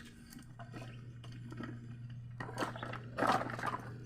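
Small handling noises of a stripped electrical wire's strands being picked out: light scrapes and clicks, busiest in the second half, over a steady low hum.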